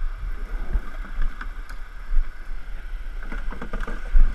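Canoe hull knocking and scraping against bare rock as it is moved at the river's edge, with a cluster of rattling knocks and a heavy thump near the end. Behind it, the steady rush of river rapids.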